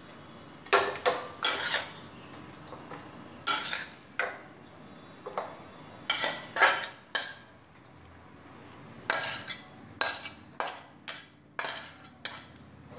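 A steel spoon scraping and clinking against a metal kadhai and a stainless steel serving bowl as cooked spinach sabji is served out. The clinks come in several short runs with pauses between.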